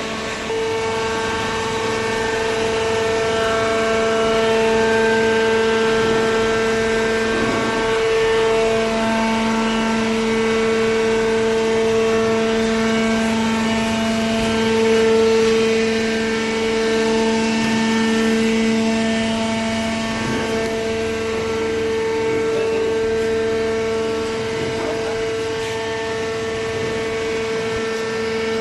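Hydraulic cardboard baler running: a steady motor and hydraulic pump hum with a held low tone and overtones, stepping up in loudness just after the start.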